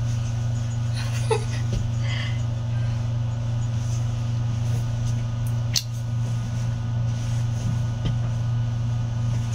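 A steady low hum, unchanging throughout, with a few faint short sounds in the first half and one sharp click a little under six seconds in.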